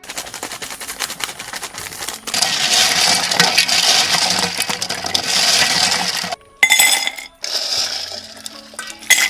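Snail shells clattering and rattling against each other and their container: a dense run of small hard clicks that grows louder after about two seconds. It breaks off suddenly, and a shorter burst of clatter follows.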